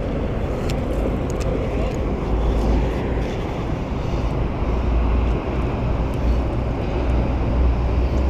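Steady rumble of city highway traffic, with heavier low surges now and then and a few faint clicks.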